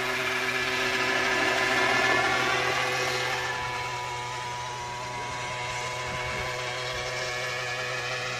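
Small gas engine of a Century 800-size radio-controlled gasser model running in flight, a steady buzzing tone whose pitch shifts as it moves. It is loudest about two seconds in, the pitch drops about three seconds in, and it climbs again near the end.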